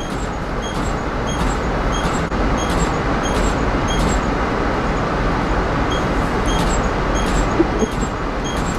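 Passenger rail car's door warning beeping over and over, a short high beep about three times every two seconds, while the sliding door is held open by its sensor. Under it runs a loud, steady rushing noise from the stopped train.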